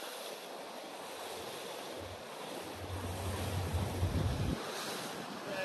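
Water rushing along the hull of a moving boat, with wind buffeting the microphone in low gusts about three seconds in.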